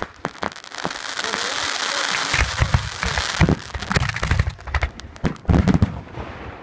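Aerial fireworks shells bursting: a sharp bang at the start, then a dense crackling hiss of many small reports for about three seconds, followed by a run of low booms and sharp bangs.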